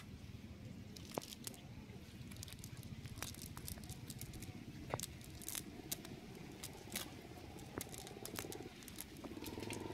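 Scattered small clicks and crackles as a wet fishing net and the leaves and twigs caught in it are handled and picked through. An engine drone comes in faintly near the end.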